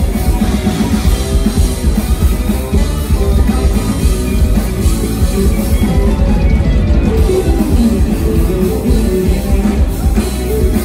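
Rock band playing loud live music: a drum kit driving a steady beat under electric guitars, heard from within the audience.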